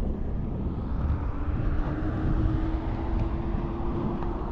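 72V electric bike with a 12 kW hub motor riding along: wind rumble and tyre noise under a steady motor whine that comes in about a second in and rises slightly in pitch as it goes.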